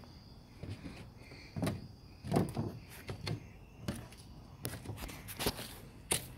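Footsteps on a wooden deck and its steps: irregular thuds and knocks, about one every half second to a second.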